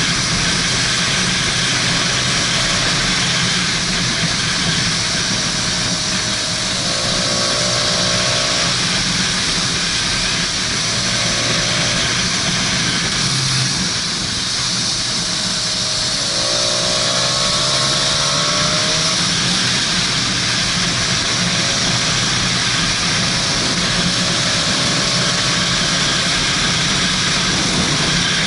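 Motorcycle engine running steadily at riding speed under a heavy rush of wind on the on-board microphone, the engine note rising briefly a few times.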